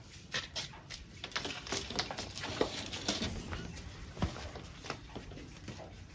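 A dense run of irregular clicks, knocks and scrapes, several a second, easing off near the end.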